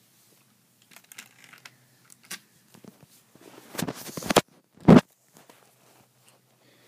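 Close handling noise: rustling and scraping, building to a loud scrape just before four seconds in, then one sharp loud thump about a second later.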